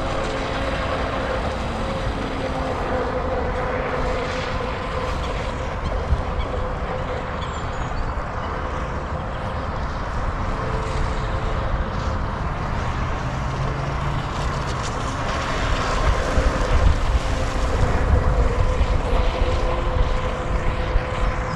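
Brushless electric motor of a Volantex Atomic SR85 RC catamaran running on the water, a steady whine. A low rumble grows louder about 16 seconds in.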